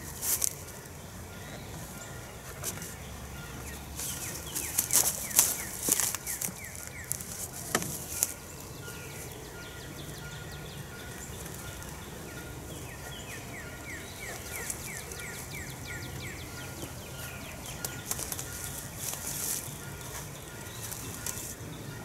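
Wooden beehive boxes being handled and stacked, with knocks and scrapes a few seconds in, over background birdsong of quick, repeated down-slurred chirps.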